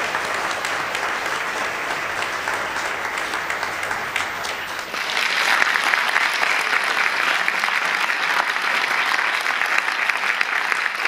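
Audience applauding with many hands clapping at once. About five seconds in the applause becomes louder and brighter.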